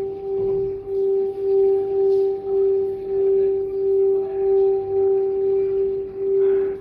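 Tibetan singing bowl sounding one steady, sustained tone with a fainter higher overtone, its loudness wobbling about twice a second.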